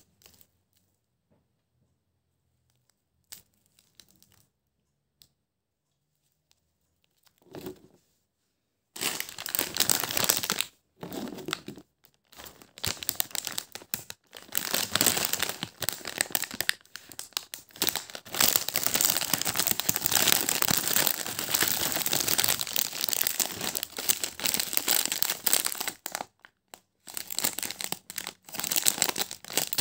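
Near silence with a few faint ticks for the first nine seconds or so. Then the shiny foil wrapper of a Maryland Cookies Minis snack bag is handled, crinkling and tearing almost without a break, with a few short pauses.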